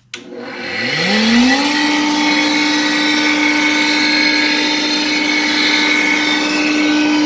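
Electric motor of an Ammco brake-shoe arcer switching on and whining up to speed over about a second and a half, then running steadily with an even hum.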